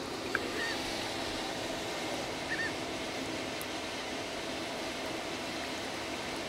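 Steady hum of the 88-foot mothership's engine machinery, with a couple of faint short chirps near the start and about two and a half seconds in.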